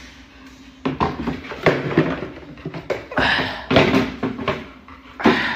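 Red plastic chair scraping and knocking on a tiled floor as a dog moves it around: a run of irregular scrapes and clatters starting about a second in.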